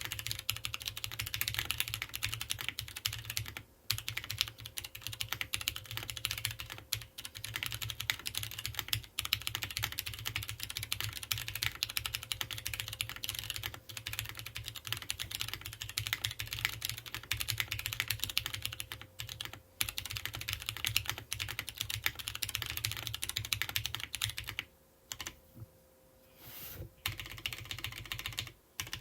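Mechanical keyboard with Cherry MX Brown tactile switches on a POM plate, with GMK keycaps, being typed on continuously at a fast pace. The typing pauses briefly a few times, with a longer break of about two seconds near the end.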